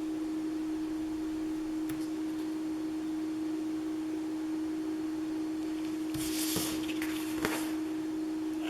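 A steady single-pitched hum, with a brief rustle of paper handling about six seconds in.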